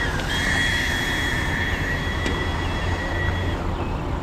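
A heavy engine running steadily with a low rumble, and a high steady whine over it that dips once at the start and cuts off about three and a half seconds in.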